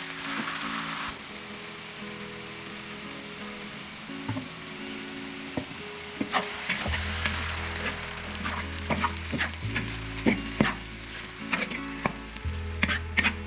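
Celtuce slices and A-choy lettuce leaves sizzling in hot oil in a wok over high heat as they are stir-fried. From about six seconds in, a spatula scrapes and knocks against the wok again and again.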